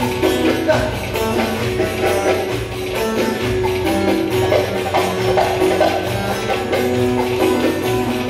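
Ankara folk dance music (oyun havası) played live: a stepping melody with held notes over a fast, steady percussion beat.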